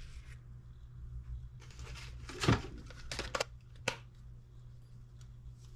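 Small handling sounds as AA batteries are fitted into a model engine's battery holder: soft rustling, with a few sharp clicks and knocks between about two and four seconds in.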